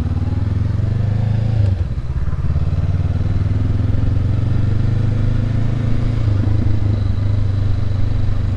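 Honda CB500X's parallel-twin engine running as the motorcycle rides slowly through city streets, with a short dip in the engine note about two seconds in, then running steadily.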